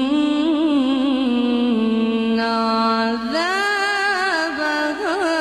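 A woman's voice reciting the Quran in melodic tajweed style, holding one long vowel with a wavering, ornamented pitch. About three seconds in she begins a new rising phrase.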